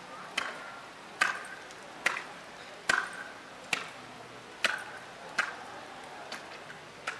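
Single drum taps from a ceremonial drum corps keeping a slow marching beat, about one strike every 0.8 s, each with a short ring. The last two strikes are softer.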